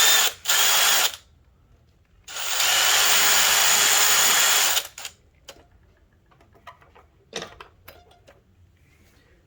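Small electric drill running in short bursts, drilling the fibre reinforcement out of the end of a polyurethane V belt: two brief runs right at the start, then a longer run of about two and a half seconds that whines up to speed. Light handling clicks follow.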